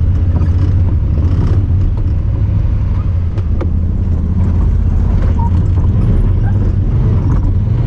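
Honda Talon 1000R side-by-side's parallel-twin engine running steadily under way, a low drone, with a few scattered clicks and knocks over it.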